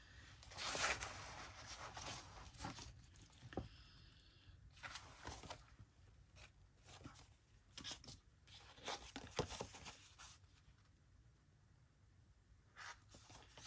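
Paper being handled for a journal page, rustling and crinkling in several short bursts, with a couple of light clicks.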